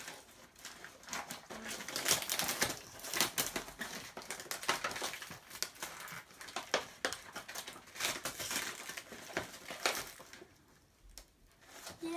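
Wrapping paper being torn and crinkled as a present is unwrapped by hand, in quick irregular rips and rustles that die down near the end.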